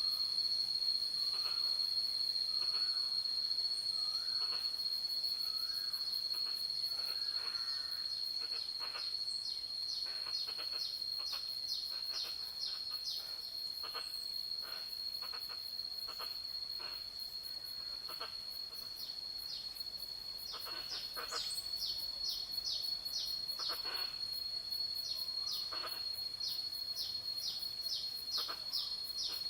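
Forest ambience: a steady high-pitched insect trill throughout, with birds calling over it in runs of quick repeated chirps and short lower whistles.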